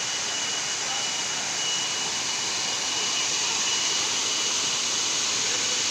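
Waterfall rushing steadily, with a thin, steady high-pitched tone above the rush.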